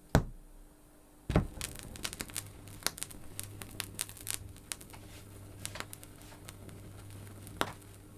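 Vinyl record surface noise from the Shure M75-6S stylus in the silent groove between tracks: scattered crackles and pops over a faint low hum, with a sharper pop right at the start and a thump about a second in.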